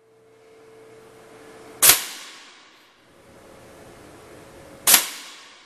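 Two shots from a Weihrauch HW100 T FAC .22 pre-charged pneumatic air rifle fitted with a Precision AR22 suppressor, about three seconds apart. Each is a sharp crack that dies away within a fraction of a second, over a faint steady hum.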